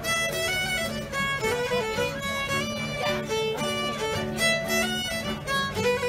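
Fiddle and acoustic guitar played live together: the fiddle carries a quick-moving bowed melody, with the guitar's chords sustained underneath.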